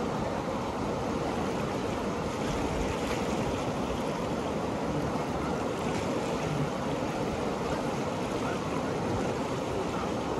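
The Ganges running fast and choppy: a steady, unbroken wash of flowing water.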